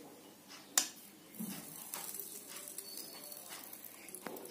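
Quiet handling noise while a lead wire is tinned with a soldering iron: a sharp click a little under a second in, then a faint hiss with small scrapes.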